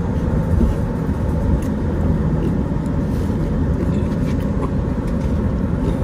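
Steady low road and engine rumble heard from inside a moving car's cabin, with a few faint ticks over it.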